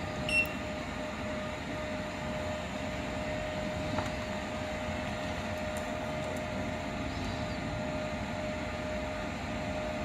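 Powered-on automatic coaxial cable stripping machine giving a steady hum with a constant mid-pitched tone. A short touchscreen key beep sounds about half a second in, and a faint click comes around four seconds.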